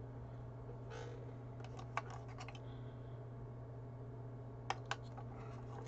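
Light clicks and taps of hands handling the plastic and carbon-fibre parts of a Magpie Daedalus electric spinning wheel: a scatter of small clicks about a second in, then two sharper clicks near the end, over a steady low hum.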